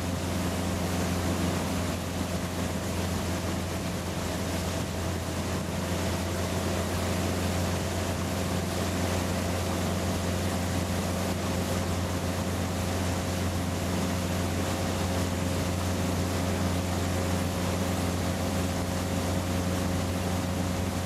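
Motorboat engine running steadily at speed while towing a water skier, a constant drone, with the rush of the wake and wind noise.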